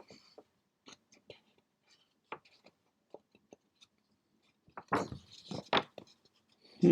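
Paper handled in short, scattered rustles and clicks, with a louder cluster about five seconds in.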